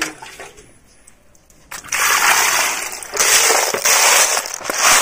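Snail shells rattling and clattering as a hand rakes through a heap of live freshwater snails in a bamboo basket, starting about two seconds in and coming in surges.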